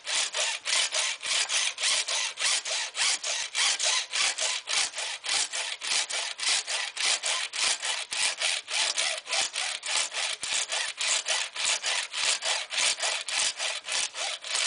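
Hacksaw cutting through the hard plastic of a clothing security tag clamped in a vise, in quick, even back-and-forth strokes, a little over three a second.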